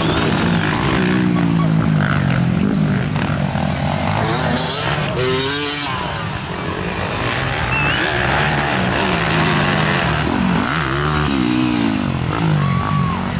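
Motocross bike engines revving hard, their pitch rising and falling with throttle and gear changes. About six seconds in one dies away briefly, and near the end another climbs and falls as it passes.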